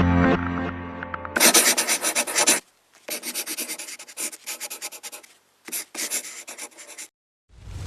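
Fast rubbing or scraping strokes in three runs, several strokes a second, with short gaps between the runs. A loud swelling whoosh starts near the end.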